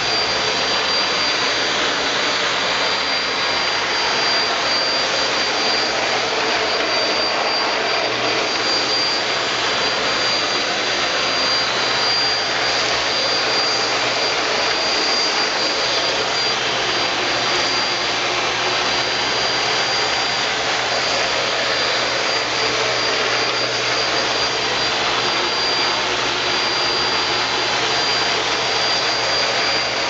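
Eureka Flash corded stick vacuum running on its low setting, the motorized brush roll turning as the floor head is pushed back and forth over a floor mat. A steady rushing of motor and suction with a steady high whine over it.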